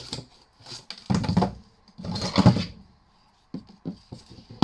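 Plastic casing and parts of a small karaoke machine scraping and clattering as its insides are pulled out: two rough bursts, then a few light clicks near the end.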